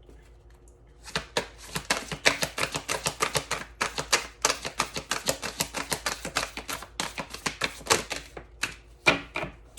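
A deck of oracle cards being shuffled by hand: a rapid, irregular run of light card clicks and flicks starting about a second in, ending with a couple of louder snaps near the end.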